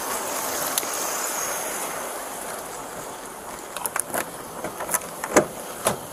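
A steady rushing noise, then from about four seconds in a few sharp clicks and knocks as a patrol car's door is unlatched and swung open.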